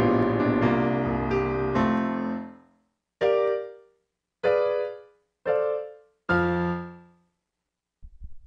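Short piano jingle: a ringing run of notes that fades out, then four separate chords struck about a second apart, each dying away, the last with a deeper bass.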